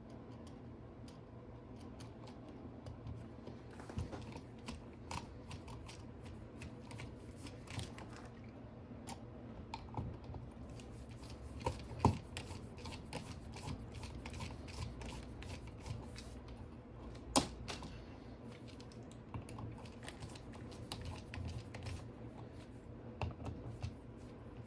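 Light switch and its wires being handled and pushed back into the electrical wall box: many small irregular clicks, scrapes and rattles, with two sharper clicks about twelve and seventeen seconds in.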